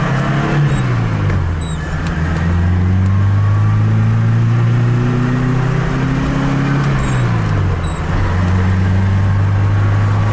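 1982 BMW 320i's four-cylinder engine pulling under acceleration, heard from inside the cabin. The engine note drops twice, about a second in and again near the eight-second mark, as it is shifted up through the five-speed manual gearbox, and holds or climbs in between.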